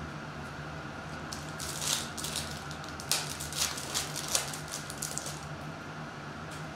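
Foil wrapper of a 2022 Bowman Baseball hobby pack being torn open by hand: a few seconds of crinkling and ripping, sharpest about three seconds in, over a steady low hum.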